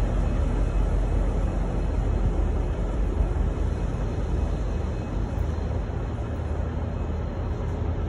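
V/Line N class diesel-electric locomotive running as it pulls away: a steady low engine rumble that eases off slightly as it draws off. No horn sounds.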